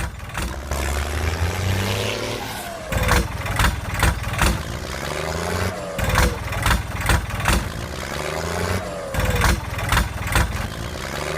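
A vehicle engine running and revving, its pitch rising and falling several times, with sharp knocks and clatters throughout.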